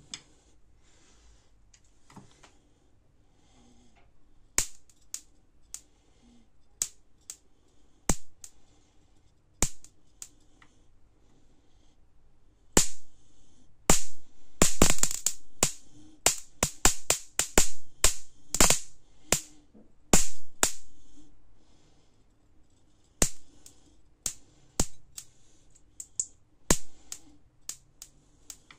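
High-voltage sparks snapping across the electrode gap of a homemade capacitor-and-diode voltage-multiplier mosquito-killer circuit as a screwdriver tip is held to it. Sharp cracks come at irregular intervals: a few at first, then a rapid run of snaps through the middle, then scattered again near the end.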